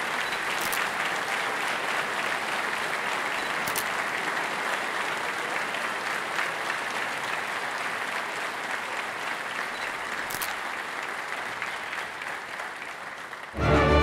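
Audience applauding steadily. Just before the end the applause gives way to an orchestra starting to play, much louder.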